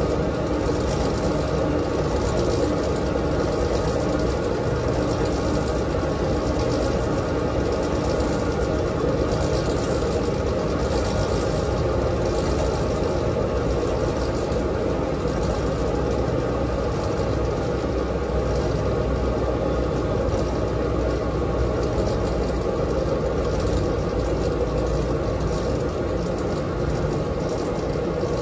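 Dexter T900 front-load commercial washer running through its cycle, with a steady motor and drum hum at an even level.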